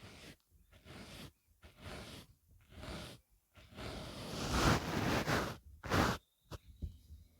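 Makeup brush swept across the microphone in soft whooshing strokes, about one a second at first, then faster, denser brushing for a couple of seconds; a few light taps follow near the end.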